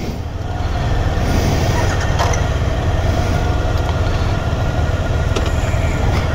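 Motorcycle engines idling close by, a steady low rumble, with a couple of faint clicks.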